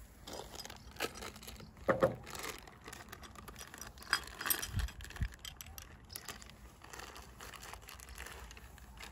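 Scattered light clicks, clinks and rustles of handling, loudest about two seconds in and again around four to five seconds in, with two dull low thumps about five seconds in.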